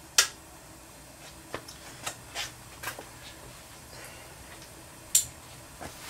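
A few light, irregular clicks and taps, about six in all; the sharpest comes just after the start and another about five seconds in, over a faint steady background.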